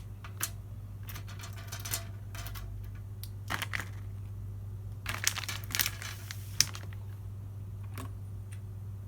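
Plastic packaging crinkling and rustling with scattered light clicks as small parts are handled, in a few irregular bursts over a steady low hum.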